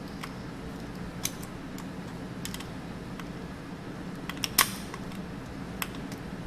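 Scattered small clicks and taps of pliers on the metal of a washing machine's door-lock switch mounting as its nut is tightened, the sharpest click about four and a half seconds in, over a steady low hum.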